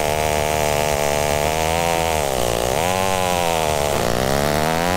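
Echo two-stroke chainsaw bucking a felled log, running at full throttle in the cut. Its engine note sags as the chain bites into the wood, about halfway through and again near the end, then climbs back.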